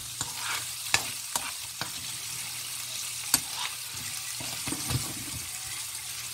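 Diced Spam and carrot sizzling in a nonstick frying pan with a steady hiss, while a spoon stirs them, clicking and scraping against the pan several times.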